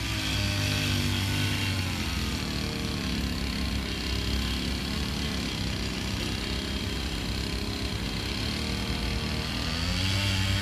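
Quadcopter drone's propellers humming steadily. The pitch dips slightly a couple of seconds in and rises again near the end as the motors change speed.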